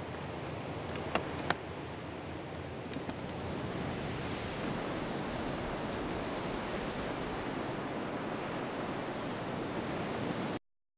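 Ocean surf breaking and washing up a sandy beach, a steady rush that swells a little louder partway through, with two short clicks about a second in. It cuts off abruptly near the end.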